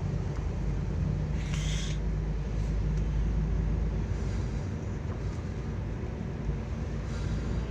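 Steady low engine and road rumble inside a moving taxi's cabin, with a brief hiss about a second and a half in.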